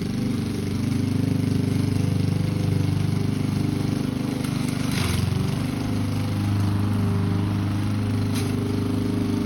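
Lawn mower engine running steadily, its pitch dipping briefly about halfway through along with a short hiss.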